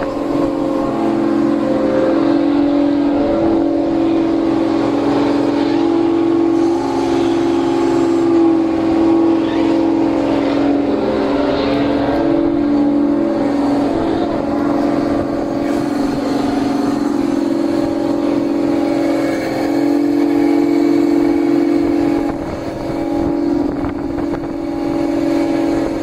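Fishing boat's machinery running with a loud, steady drone that holds one pitch throughout, dipping slightly in level for a moment near the end.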